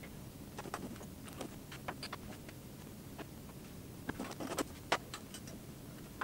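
Scattered light clicks and taps, with a cluster of sharper ones about four to five seconds in, as a vintage Singer Rocketeer sewing machine is handled while being oiled from an oil bottle.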